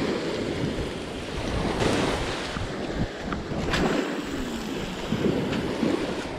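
Small surf waves washing up onto a sandy beach, rising and falling, with wind buffeting the microphone. A few light clicks sound around the middle.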